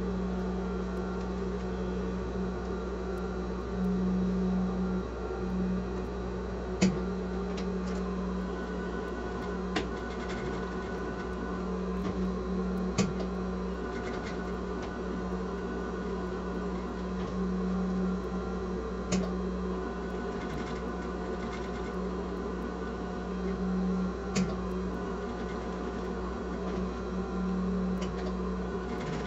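Sewing machine running steadily while stitching a small reinforcing square back and forth to secure a bag handle, its hum swelling a few times, with several sharp clicks.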